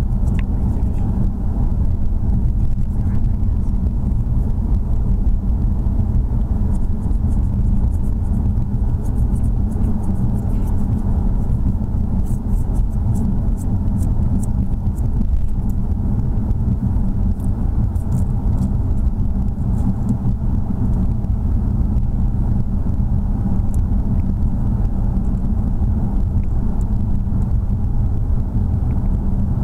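Steady low rumble of a car heard from inside its cabin, with a few faint light ticks in the middle.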